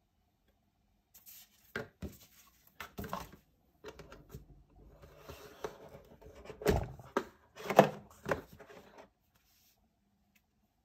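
Handling noises from unboxing a tablet: taps, knocks, rustles and light scrapes as the tablet in its folio case and the loose packaging are lifted from a cardboard box, starting about a second in, with the sharpest knocks about seven and eight seconds in.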